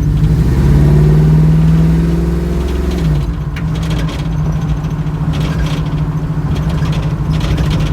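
1972 Camaro RS engine accelerating: its note rises over the first second and holds, then drops in pitch about three seconds in and settles to a steady cruise.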